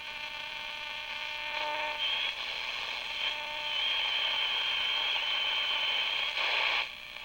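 Panasonic R-111 AM transistor radio hissing with static and steady whistling tones while being tuned between stations; a high whistle comes in about two seconds in and cuts off near the end. The set has just come back to life after repair and is not yet aligned.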